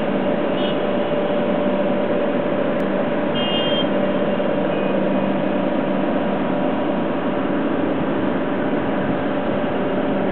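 Steady city traffic noise from the streets below, with a constant machinery hum running under it. A couple of faint short high beeps sound in the first few seconds.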